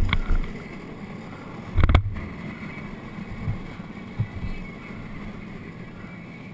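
A carrilana, a gravity-powered downhill racing cart, rolling along asphalt, with a steady low rumble of its wheels on the road. There is a loud thump about two seconds in.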